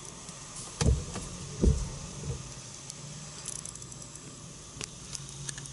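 Automatic car wash presoak pass heard from inside the car. There are two muffled low thumps about a second apart in the first two seconds, then a faint steady hum with light scattered ticking of spray on the glass.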